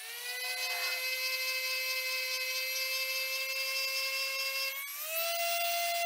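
Variable-speed random orbital sander spinning up and sanding through paint on wood: a steady whine that climbs in pitch over the first second, then steps up and holds at a higher pitch about five seconds in.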